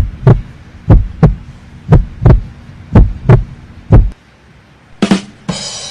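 Deep, loud drum-like thumps in pairs, about one pair a second, like a heartbeat sound effect. Near the end comes a single hit followed by a short hiss.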